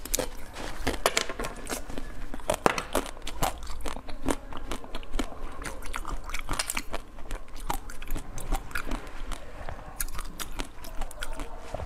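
Close-miked biting and crunching into the hard blue shell of a frozen dessert ball, the shell cracking with many sharp crackles, with chewing between bites.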